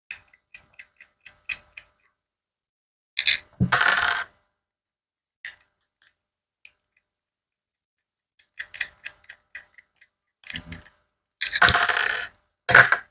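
Precision screwdriver ticking as it backs small screws out of a Kemei 2236 hair trimmer, in two runs of light quick ticks. In between, small metal screws clatter onto a hard tabletop, the loudest sounds, about three seconds in and several times near the end.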